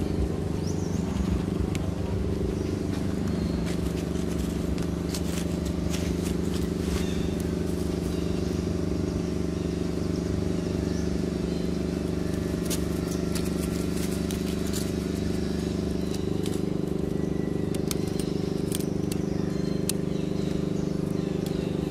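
A steady motor hum holding one pitch, with faint scattered clicks and crackles over it.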